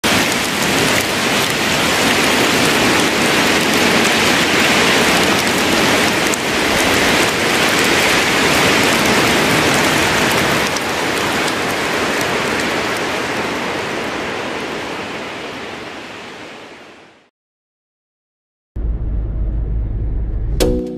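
A loud, steady rushing noise like heavy rain that fades out over several seconds, then a short silence. Near the end, music starts with a deep bass note and sharp beats.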